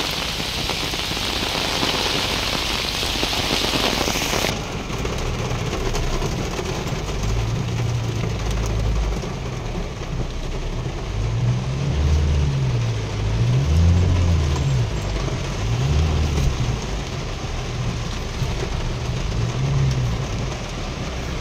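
Heavy rain pouring down, then, after a sudden change about four seconds in, rain on a vehicle's windshield and roof heard from inside the cab, with a low engine note that rises and falls several times.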